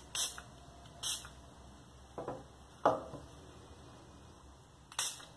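Short spritzes from a small pump-spray bottle of protective gun oil being applied to a field-stripped pistol's slide and frame: three quick hisses, one right at the start, one about a second in and one near the end. In between come two duller knocks of the metal parts being handled, the second the loudest sound.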